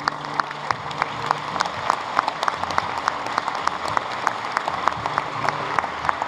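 Audience clapping together in a steady rhythm, about three claps a second, over a general haze of applause in a large hall.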